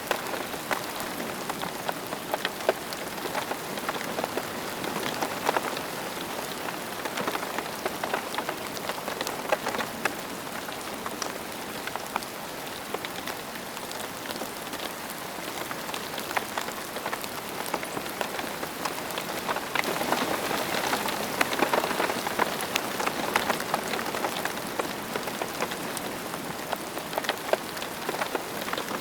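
Steady rain falling on a hard surface, a constant hiss with many individual drops ticking and spattering. It grows a little heavier for a few seconds about twenty seconds in.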